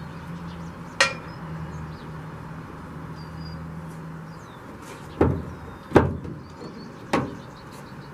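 Four sharp metal knocks and clinks, one about a second in and three close together in the second half: the Jeep's loosened steel hood hinge being handled against the hood.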